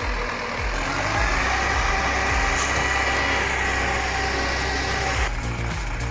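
Heavy diesel machine engine running steadily under load, with a whine that rises about a second in and holds, then an abrupt change in the sound just after five seconds in.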